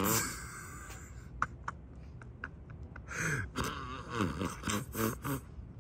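Breathy, gasp-like voice sounds with no clear words: one at the very start and several short ones from about three seconds in. A few faint clicks come between them.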